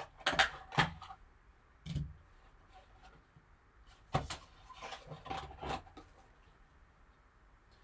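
Sealed trading-card packaging being opened and handled: several short knocks and rustles in a few clusters, with quiet gaps between.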